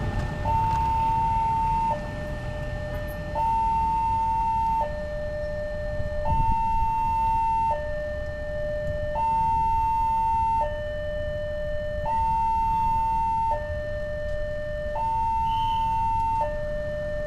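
Electronic level-crossing warning alarm sounding a two-tone signal: a high tone and a lower tone alternate, each held about a second and a half, with the high tone louder. It signals that a train is approaching and the barriers are down. Low traffic rumble runs underneath.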